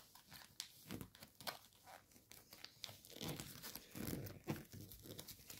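Gold foil origami paper crinkling and crackling faintly as it is unfolded and inside-reverse-folded by hand, with scattered crisp crackles that grow busier in the second half.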